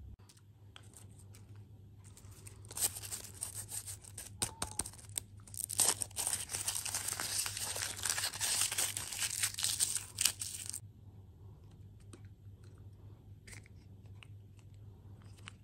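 Thin foil wrapper crinkling and tearing as it is peeled off a hollow chocolate surprise egg, for about eight seconds. Faint small clicks and cracks follow as the chocolate shell is broken open.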